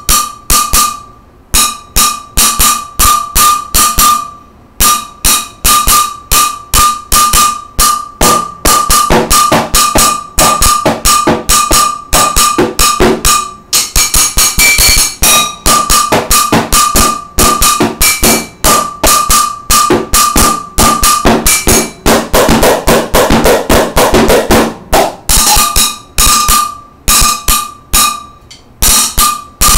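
Freestyle drumming with wooden sticks, mostly on a stainless steel cooking pot: rapid strikes with a ringing metal tone, broken by brief pauses, and a fast roll a little past twenty seconds in.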